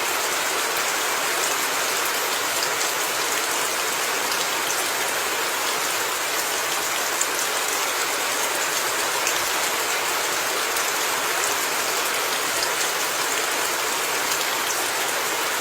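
Steady rain falling and pattering on a surface, a continuous hiss with scattered drop ticks.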